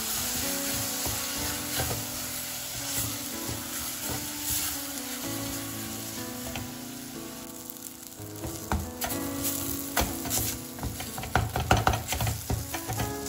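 Bulgur sautéing in butter and oil with tomato paste in a stainless steel pot, sizzling while a wooden spoon stirs it and scrapes the pot. The stirring clicks and scrapes grow busier and louder over the last few seconds.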